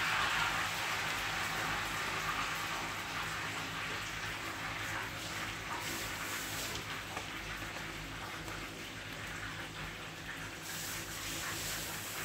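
A golden retriever eating dry kibble from a plastic bowl, with faint crunches and clicks, over a steady sizzling hiss of food frying. The sizzle is loudest at the start and eases after a couple of seconds.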